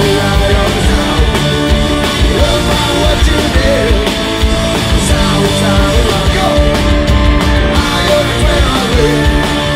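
Live rock band playing loudly: electric guitars, drums and keyboards, with a male lead vocalist singing into a microphone.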